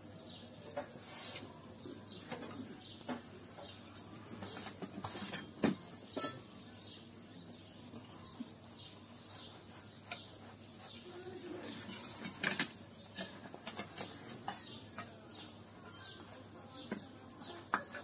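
Small birds chirping on and off, with a few sharp clinks of cutlery on dishes.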